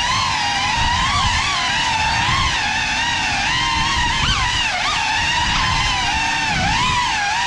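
Cinelog 35 FPV cinewhoop drone's motors and ducted propellers whining, the pitch rising and falling constantly with the throttle, with a few quick upward jumps a little past the middle, over a rough low rumble.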